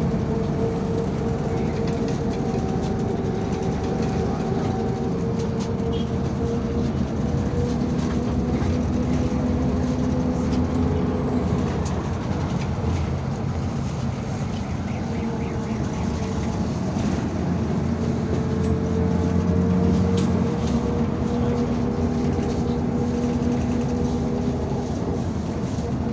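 The MAZ 203 city bus driving, heard from inside the passenger cabin: a continuous rumble of engine and road noise with a steady hum that fades in and out in stretches.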